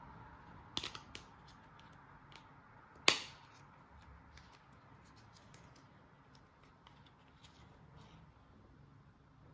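Toy unboxing handling sounds: scattered light clicks and ticks, with a couple of louder clicks about a second in and one sharp click with a brief ring just after three seconds.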